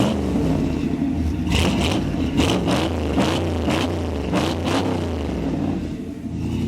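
1966 Chevy truck engine revved in a series of throttle blips, its pitch rising and falling with each one, then settling back near the end. It is running on a freshly adjusted carburetor.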